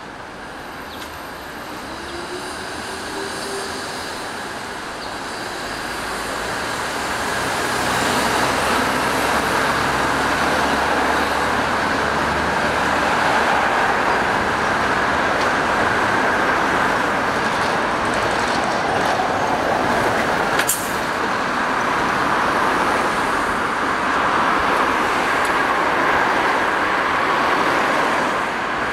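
Road traffic on a multi-lane city street: the steady tyre and engine noise of passing cars, building up over the first several seconds and then staying loud. One brief sharp click about two-thirds of the way through.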